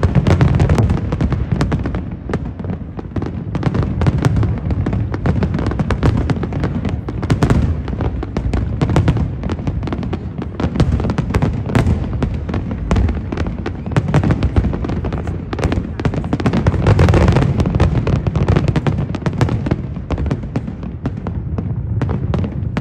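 Fireworks display at full intensity: aerial shells bursting in rapid succession, many sharp bangs over a continuous low rumble, loudest near the start and again about seventeen seconds in.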